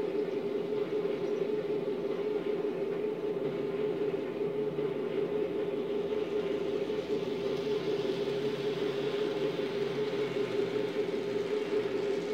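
N-scale model trains running on the layout: a steady whir of small locomotive motors and wheels on the track, with a little more hiss toward the end.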